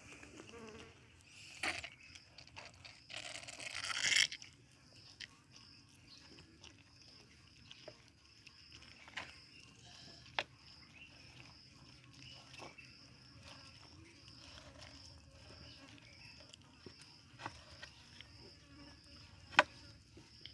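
Tortoises feeding from a tray of grated butternut and pumpkin, with scattered soft clicks and crunches of chewing and a louder rustling burst about four seconds in. A steady high insect drone runs underneath.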